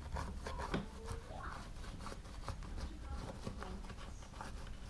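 A rotary cutter rolled and pressed hard through a rubber band saw tire along a plastic guide: irregular scraping and small clicks as the blade scores the tough rubber over repeated passes.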